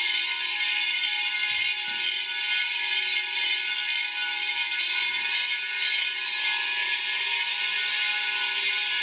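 Several hand-held glazed bowls being played together: a continuous rasping hiss with a few steady ringing tones held underneath it.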